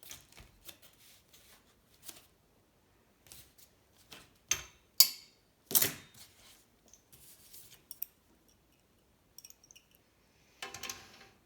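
Scattered clicks and taps of tools and metal parts being handled on a workbench, with a few sharper clicks around the middle and a short burst of rustling and clicking near the end.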